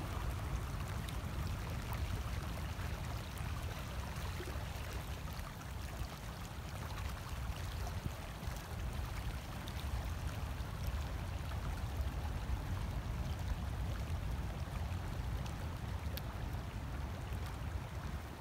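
Storm overwash: seawater rushing in a shallow, fast, churning flow across a barrier-island beach toward the bay, a steady rushing noise.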